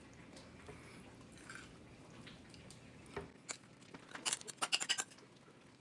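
Kitchen food-prep clatter: light clicks and taps of utensils and food handling. They start about three seconds in and come in a quick run of several a second near the end.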